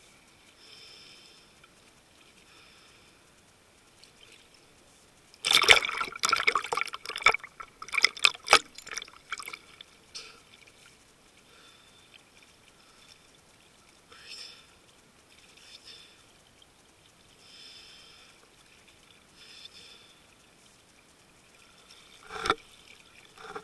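Choppy sea water sloshing and splashing against a camera bobbing at the waterline. A dense run of loud splashing starts about five and a half seconds in and lasts about four seconds, with a couple of sharp splashes near the end.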